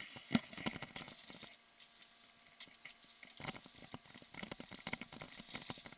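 Faint, irregular clicks and rattles from a mountain bike rolling slowly over a rocky trail. They are sparse at first and come thicker from about halfway through.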